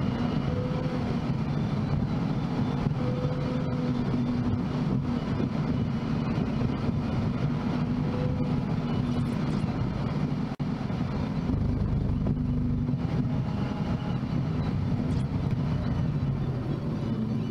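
Steady engine and tyre noise of a car driving on the open road, heard from inside the cabin, with a momentary dropout about ten and a half seconds in.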